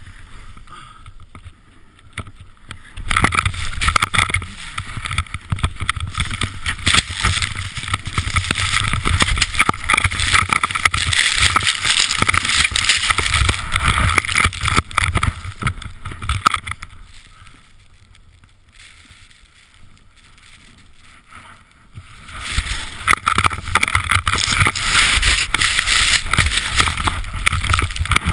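Wind rushing and buffeting over a body-worn camera's microphone during a fast ski descent, mixed with the skis sliding through snow. It drops away for a few seconds about two-thirds through, then picks up again.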